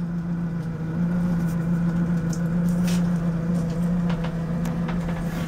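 A steady low hum, from a machine or an electrical source, holding one pitch throughout, with a few faint clicks over it.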